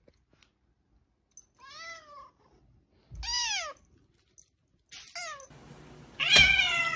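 Cat meows: three short meows, each rising then falling in pitch, about a second and a half apart, then a louder, longer meow from a second cat near the end.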